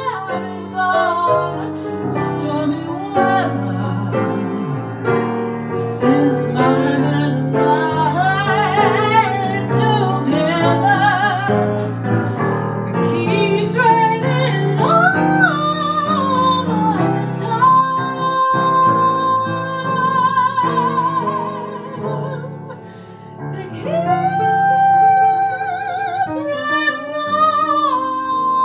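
A woman singing over piano accompaniment, with long held notes that waver in vibrato.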